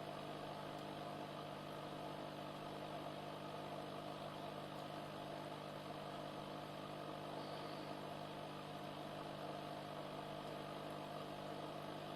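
Steady low hum from a small running machine or electrical device, made up of several constant tones that do not change in pitch or level.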